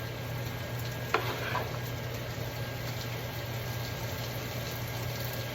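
Bacon, onion, red pepper and garlic frying in a pan: a steady sizzle, with a short utensil click about a second in and a steady low hum underneath.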